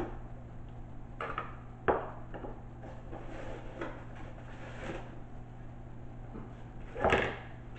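A small cardboard box being opened and unpacked by hand: a few sharp knocks as the flaps and box are handled, soft rustling as paper packaging and the contents are pulled out, and a louder scuffing burst near the end.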